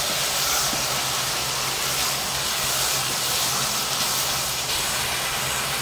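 Chopped ridge gourd sabzi frying in a wok with a steady sizzle as it is stirred with a spatula, its cooking water nearly boiled off so the vegetables are now frying in the oil.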